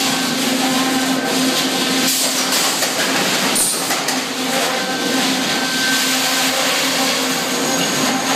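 Sawmill head-rig machinery running: a loud, steady mechanical drone with a low hum, broken by a few knocks about two and four seconds in.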